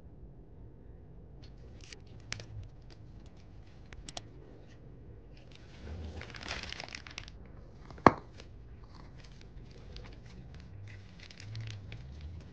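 Clear plastic piping bag crinkling and rustling as meringue is spooned and squeezed into it, with light clicks and scrapes of a spatula. A single sharp knock about two-thirds of the way through is the loudest sound.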